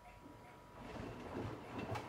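Bosch Serie 8 front-loading washing machine: a faint steady tone and light ticking, then about a second in the drum starts turning, the wet laundry tumbling and sloshing with a low uneven rumble.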